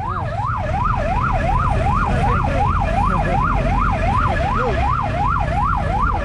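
Ambulance siren wailing in a fast, even up-and-down sweep, about two and a half sweeps a second, over a low engine rumble from traffic.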